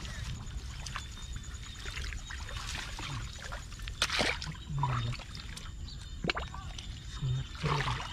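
Water splashing, trickling and sloshing in shallow canal water, with a couple of sharper splashes, over a steady low rumble.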